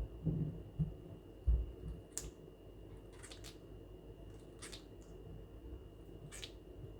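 Quaker (monk) parrot grinding its beak: short, dry scraping clicks every second or so, the sound of a relaxed bird settling. A few low thumps in the first second and a half.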